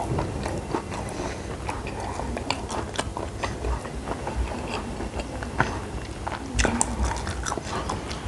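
A person chewing and biting food close to the microphone, with irregular small wet clicks and smacks throughout.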